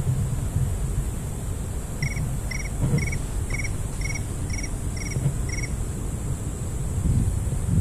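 Wind buffeting the microphone in an uneven low rumble. From about two seconds in, eight short, evenly spaced chirps come at about two a second.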